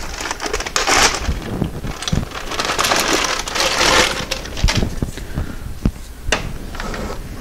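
Plastic bag crinkling and rustling as it is opened and a new rubber coolant hose is pulled out, with a few sharp clicks and knocks in the second half.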